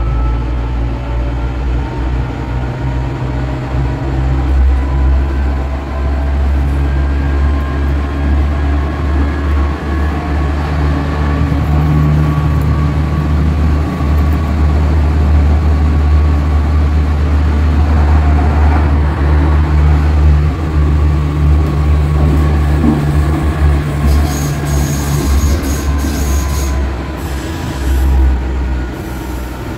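Light-rail tram car in motion, heard from inside: a steady low rumble of wheels on the rails with a thin whine that slowly rises and falls in pitch as the car changes speed. There is some rattling and clicking near the end.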